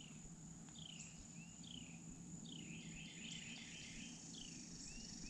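Faint outdoor ambience: a bird giving repeated short chirps, most sliding down in pitch, over a steady high-pitched insect drone.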